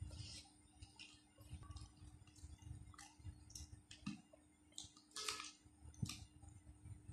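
Quiet, wet eating sounds: fingers squishing and mixing rice with fish curry on a plate, with soft chewing and scattered small clicks and lip smacks, the loudest one about five seconds in.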